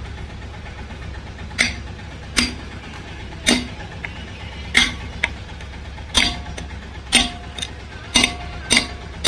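Hammer tapping a crankshaft oil seal into the timing-side housing of a Mahindra Jeeto engine: a series of sharp taps at uneven intervals, roughly one a second, some leaving a short metallic ring. The seal is being driven in only to a set depth, not fully bottomed. A steady low hum runs underneath.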